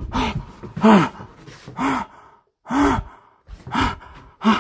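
A man gasping out loud, about six breathy, voiced gasps spaced roughly a second apart, each with a short falling pitch.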